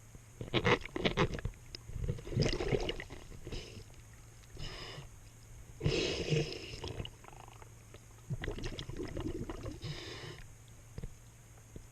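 A diver breathing through a regulator underwater: hissing inhales alternate with bubbling exhales, about five breaths, irregularly spaced.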